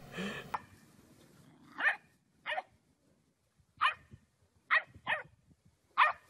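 A dog barking: six short, separate barks, irregularly spaced about half a second to a second and a half apart.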